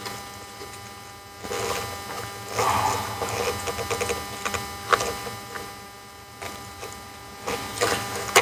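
Hook-bladed razor tool slicing the sealant seam along the edge of an ABS module's cover, in irregular scraping strokes with sharp clicks, over a faint steady hum.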